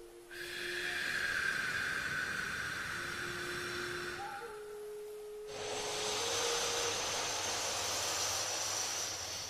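A slow, even exhale through the nose, a long airy hiss lasting about five seconds, followed by a slow inhale through the nose with a higher, thinner hiss. This is paced alternate-nostril (pranayama) breathing at about five seconds per breath. Under it, soft sustained tones step between a few pitches.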